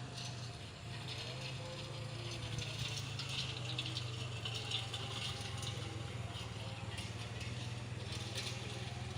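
Driving-range golf ball picker machine running: a steady low drone under a continuous dense rattle.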